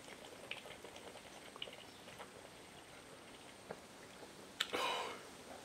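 Faint gulping and small clicks of a man drinking beer from a can, then near the end a sharp click and a short hiss.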